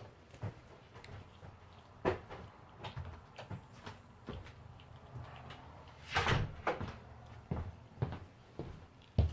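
Irregular soft thumps, knocks and scuffling of a dog shaking and chewing a plush squeaky toy, with a louder scuffle about six seconds in and a sharp thump near the end.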